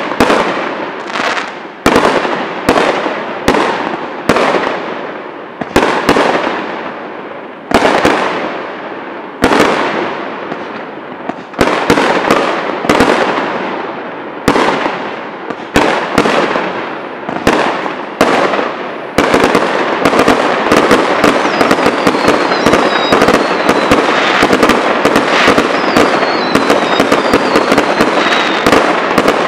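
Aerial fireworks shells bursting one after another, each bang followed by a long echoing tail, every second or two. About two-thirds of the way through they give way to a dense, continuous crackling barrage with faint falling whistles.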